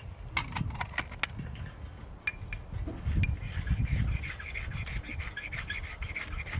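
Rubbing and scraping handling sounds, with a quick run of sharp clicks about half a second in and a steadier rasping from about halfway through.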